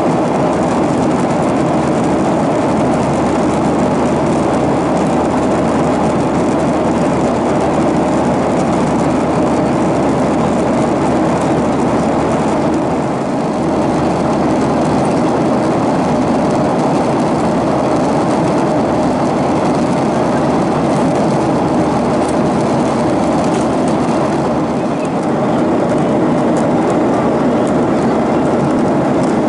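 Steady cabin noise of a jet airliner in cruise, engine and airflow noise heard from a window seat, easing slightly twice.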